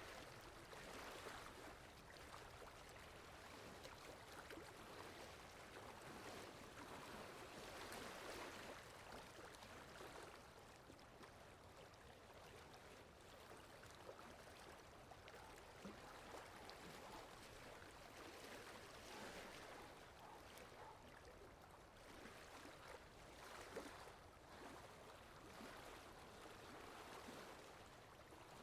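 Faint water lapping with wind: a continuous wash of noise that swells and eases every few seconds.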